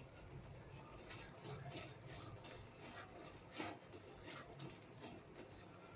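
Faint scraping and rubbing of a silicone spatula stirring thickened, bubbling milk in a metal kadhai, in short irregular strokes, one louder about three and a half seconds in. The milk is being reduced towards khoya and is stirred so it does not stick to the bottom.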